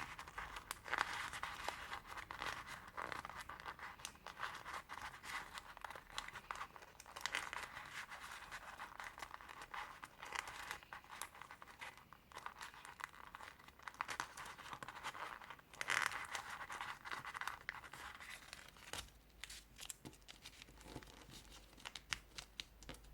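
Colored origami paper being handled: crinkling and rustling with sharp little crackles as folded pieces are creased and tucked into one another to assemble a box lid. It goes in irregular spurts, busiest around the middle and thinning out near the end.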